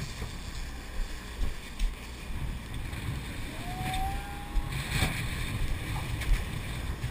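Sport fishing boat under way in rough sea: a steady engine rumble and the rush of churning wake, with wind buffeting the microphone. A short rising pitched tone sounds about four seconds in, and a sharp knock comes about a second later.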